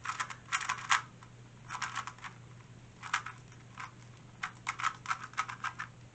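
A 2x2 Rubik's cube being turned fast during a speed solve: bursts of quick plastic clicks and clacks, with short pauses between the flurries of turns.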